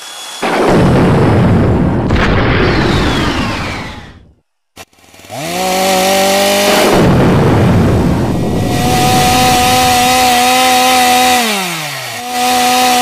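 A loud crash and rumble, then after a brief silence a chainsaw revs up and runs at a steady high pitch. Near the end its pitch slides down, then it picks up again and runs steady.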